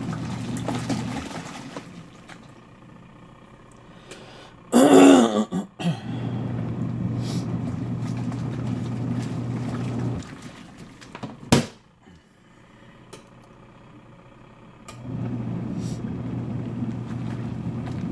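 A twin tub washing machine's wash motor driving the pulsator in runs of about four seconds, a steady low hum that stops and restarts with pauses between, as the wash agitates the load. About five seconds in there is a short, loud cough-like sound, and a sharp click comes during the pause before the last run.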